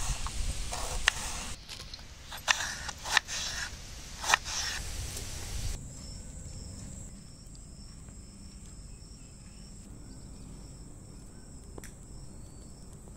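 A knife slicing a red onion against a wooden chopping board, several sharp cuts in the first few seconds. After that, quieter outdoor ambience with insects chirping in a fast, even repeat.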